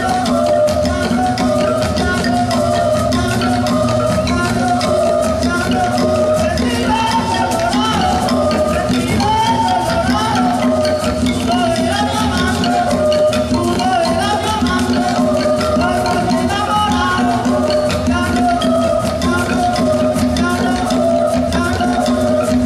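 Live Colombian Pacific marimba music: a marimba de chonta plays over hand drums and a steady shaker rattle, with women's voices singing.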